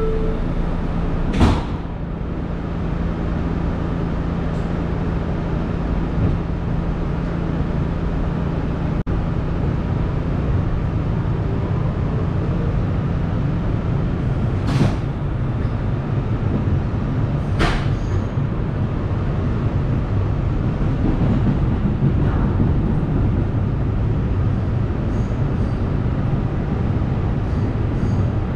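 Inside an R211A subway car: the doors shut with a sharp knock about a second and a half in, then the train pulls out and runs on with a steady motor hum and rumble from the rails. Two sharp clunks come about halfway through.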